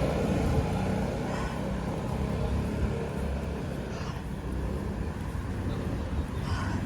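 Steady low rumble and hiss of road vehicle noise.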